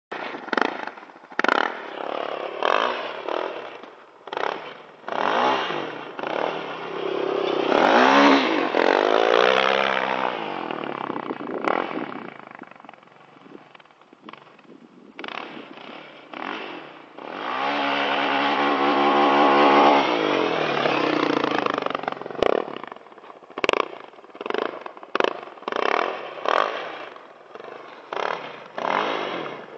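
Honda TRX700XX sport quad's single-cylinder four-stroke engine revving in short throttle blips, with two longer high-rev runs about eight seconds in and from about eighteen to twenty seconds. The pitch drops as the first run passes close by, and the engine sounds fainter and farther off in the middle.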